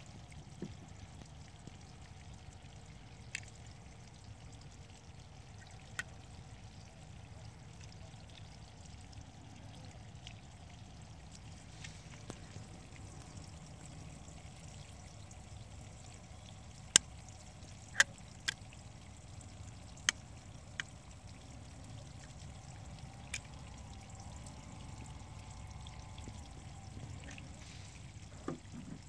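Scattered sharp clicks, about nine of them with the loudest pair a little past halfway, from the clamps, fiber holders and cleaver of a fiber optic fusion splicer being opened, set and closed by hand. A faint steady rumble and hiss lies under them.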